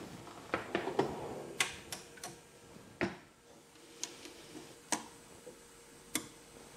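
Irregular light clicks and taps, about a dozen, from hands handling plastic and metal parts of a DGSHAPE DWX-42W dental milling machine: first a plastic box pushed into its front drawer, then the workpiece holder inside the milling chamber.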